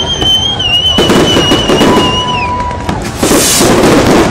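Aerial fireworks going off in quick succession, a dense run of bangs and crackles. A long high whistle holds steady over the first two seconds, then drops away, and a loud hissing crackle breaks out about three seconds in.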